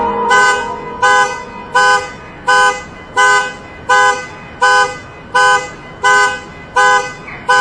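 Car alarm sounding through the car's horn: short, even two-tone honks repeating about three times every two seconds.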